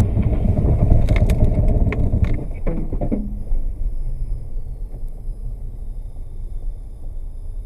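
Car interior road and engine rumble during hard braking from about 53 to 15 km/h, loud for the first three seconds with a run of sharp knocks and clatters. After that it settles into a quieter, steady low rumble as the car crawls along.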